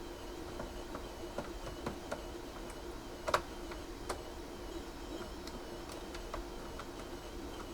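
Irregular clicks and taps from a rewired Craft KC3 joystick being worked during game play, with one sharper click about three seconds in. Under them, a faint warbling electronic tone repeats about twice a second over a steady low hum.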